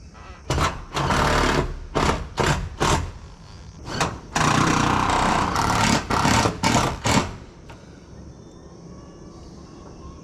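Power driver running in a series of short and longer bursts, driving roofing screws through metal roof panels.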